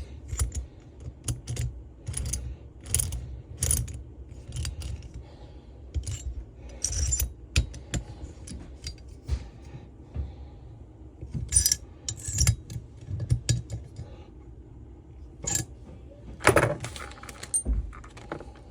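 Small metal engine parts and hand tools clinking and rattling in irregular handling clatter while a leaf blower's bottom end is assembled, with a louder clatter near the end.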